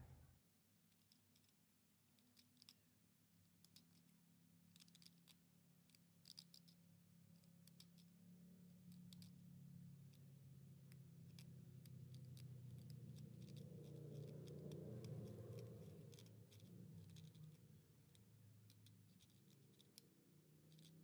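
A small hooked scorp scraping and paring the broken end-grain face of a wooden Stanley No. 2 plane tote: many short, faint scratchy strokes as the joint surface is hollowed out.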